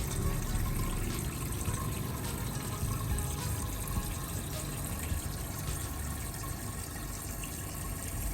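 Water running steadily into a bucket holding espresso portafilters and baskets, filling it to soak them for cleaning.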